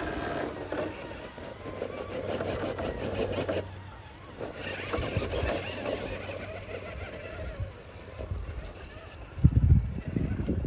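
Small electric motor and gears of an RC crawler truck running in two bursts with a fine, rapid whir, then a loud low thump about a second before the end.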